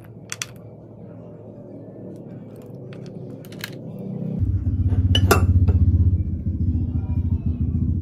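Sikad-sikad snail shells clicking as they are handled and picked at, then about halfway in a loud, steady low rumble starts suddenly and runs on, with one sharp clink in it.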